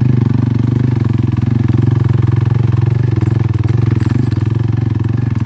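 Motorcycle engine running at a steady pitch while the bike is ridden along a rough dirt track.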